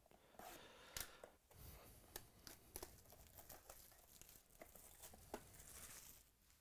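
Faint crinkling and tearing of cellophane shrink-wrap being slit and pulled off a trading-card hobby box, with scattered small sharp clicks and rustles.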